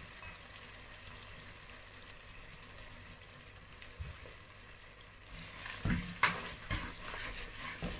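Tomato and pepper sauce sizzling softly in a pot. From about five and a half seconds in, a plastic spatula stirs it, scraping and knocking against the pot several times.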